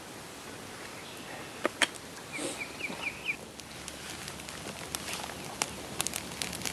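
A small fire of damp kindling crackling, with scattered sharp pops and snaps of wood. About two and a half seconds in, a bird gives a quick run of five short rising chirps.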